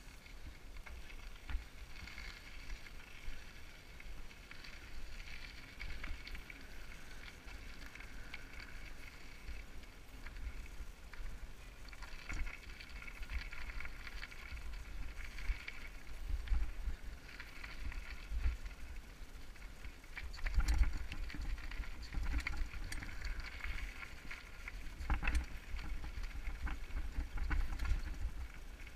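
Mountain bike riding down a rocky dirt singletrack: tyres crunching over loose gravel and the bike rattling over bumps, with low rumbling jolts on the camera's microphone. A few sharper knocks come about two-thirds of the way through.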